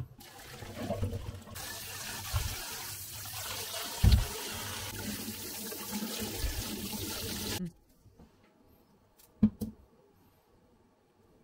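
Kitchen tap water running into a stainless steel sink while boiled oxtail pieces are rinsed. It starts abruptly about a second and a half in and shuts off suddenly after about six seconds. It is followed by a couple of short snips of kitchen scissors.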